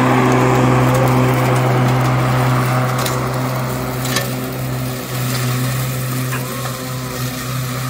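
Ryobi battery-electric riding mower running as it mows grass. It makes a steady hum with a hiss over it, fading as the mower drives away, with a couple of light clicks.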